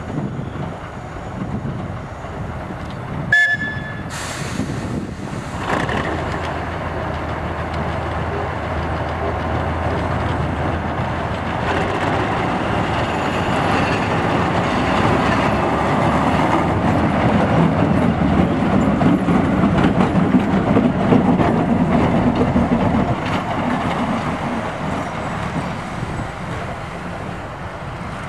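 TU2 narrow-gauge diesel locomotive's V12 diesel engine running and building up as the locomotive pulls away on its own from its coaches during shunting, then easing off near the end. About three seconds in there is a brief horn toot, followed by a short hiss.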